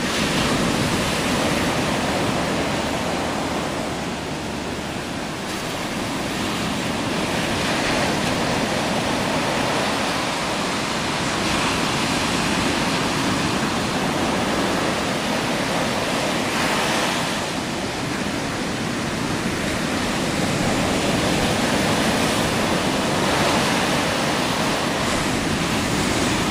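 Ocean surf breaking and washing up a sandy beach: a continuous rush of white water that eases briefly about four seconds in and again about seventeen seconds in.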